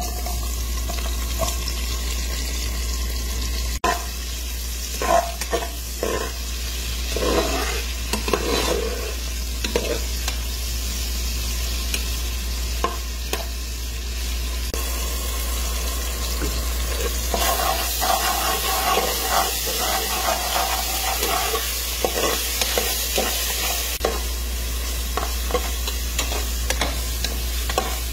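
Sliced onions sizzling in hot oil in a pan, with a spatula stirring and scraping through them now and then. A steady low hum runs underneath.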